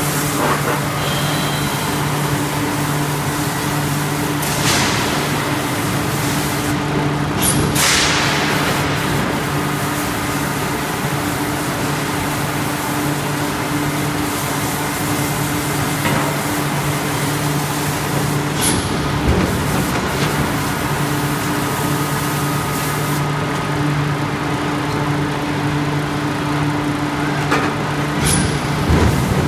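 Forge-shop noise from a 7000-ton mechanical hot forging press at work: a loud steady machine hum, broken about every ten seconds by a short sharp burst with a hiss as the press cycles.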